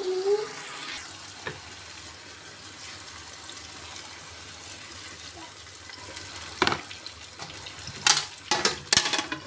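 Water poured from a bowl into a frying pan of chicken pieces and peppers: a steady splashing hiss for several seconds. Near the end come several sharp knocks.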